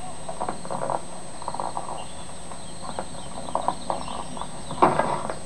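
Irregular light knocks and clicks, with one louder knock near the end, heard through a television speaker over a faint steady high tone.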